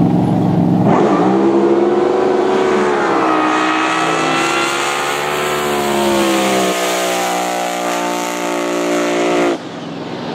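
Racing jet drag boat's engine idling at the line, then about a second in going to full throttle on launch: a high-pitched, rising howl held at high revs down the course. Its pitch steps about two-thirds of the way through, and the sound drops away sharply near the end.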